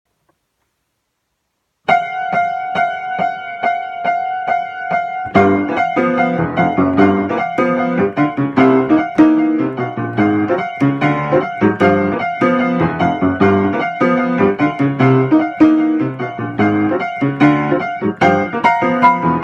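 Piano playing a funky arrangement of a railway crossing bell, the Keio Line crossing's warning tone. After about two seconds of silence, one high note repeats about three times a second like the crossing bell. About five seconds in, bass and chords join under it in a syncopated groove.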